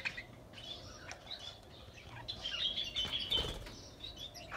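Small cage birds chirping in an aviary, in short high clusters, with a brief flutter of wings a little after three seconds in.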